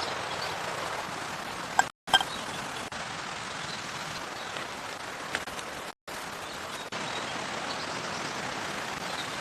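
Steady outdoor hiss with a few sharp pops, cutting out completely for a moment twice.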